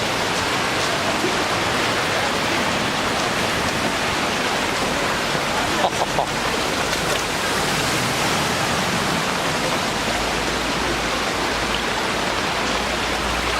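Floodwater rushing down a city street like a river: a steady, even rush of water.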